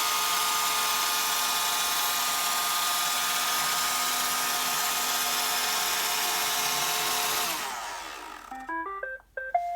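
Roomba 537 robot vacuum running its brush and vacuum motors with a steady whirr, which winds down with falling pitch near the end as it docks. It then plays a short rising beep tune, the chime that signals it has begun charging.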